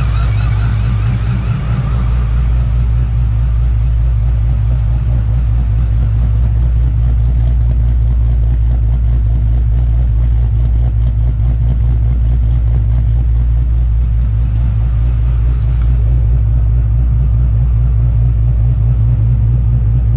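Whipple 2.9 L supercharged Hemi V8 with an SRT performance cam idling with a steady, loud, lumpy low rumble. A wavering whine fades out over the first couple of seconds.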